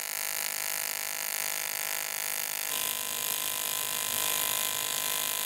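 AC TIG welding arc on quarter-inch-wall aluminum square tubing, set to about 100 amps at a 50 Hz AC frequency: a steady electric buzz, growing a little louder about halfway through.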